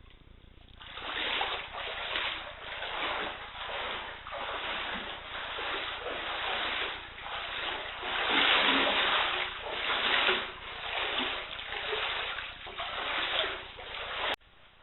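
Knee-deep floodwater splashing and sloshing around legs wading through a flooded house, a surge with each stride, about one to two a second. It stops abruptly near the end.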